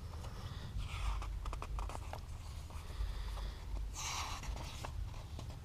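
Paper pages of a model kit's instruction booklet being handled and turned: soft rustling and small ticks, with a louder swish of a page turning about four seconds in.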